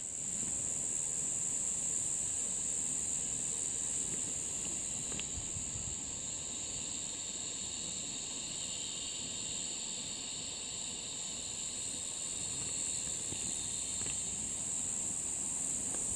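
Steady high-pitched insect drone, with a second, lower insect chorus joining about six seconds in and dying away near the end.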